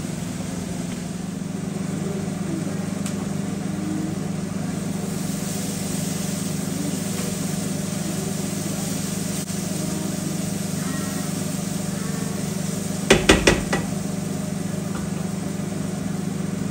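A steady low machine hum, like a kitchen appliance running, with four quick knocks close together about thirteen seconds in.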